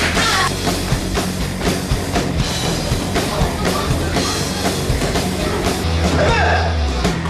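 Rock music with a steady drum beat over a heavy bass line.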